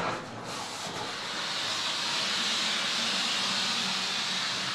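Suction hose of a sewer-cleaning vacuum truck drawing in water and sludge with a steady hiss. The hiss sets in about half a second in.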